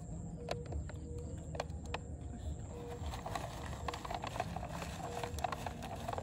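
Close-up eating sounds: chewing with many small clicks and crunches, growing denser about halfway through.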